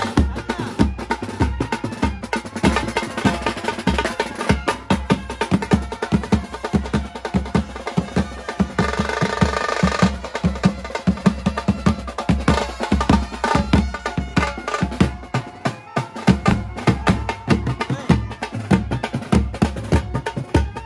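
Indian brass band drummers beating snare drums and large bass drums in a fast, driving rhythm. About nine seconds in, a saxophone melody sounds over the drums.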